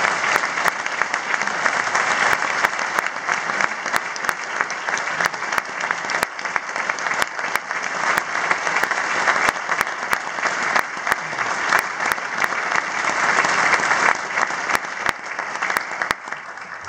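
Large audience applauding steadily in a concert hall, the clapping dying away near the end.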